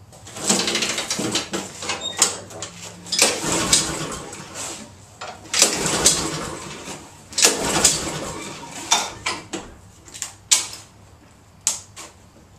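Honda walk-behind lawn mower being pull-started again and again, each tug of the recoil cord turning the engine over in a short rush of noise that dies away without the engine catching. The fuel valve is turned off, which the owner suspects is why it won't start.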